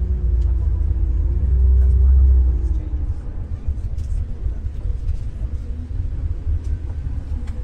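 Stagecoach double-decker bus on the move: a steady low rumble of engine and road, louder for the first two and a half seconds and then quieter. A faint wavering whine runs with the louder part and fades out as the rumble drops.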